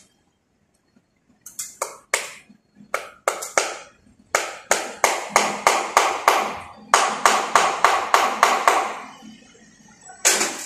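Sharp hand-tool strikes on a wall-mounted electrical box, like hammering. A few spaced knocks come first, then a fast run of about three a second that stops about nine seconds in, and one more loud strike near the end.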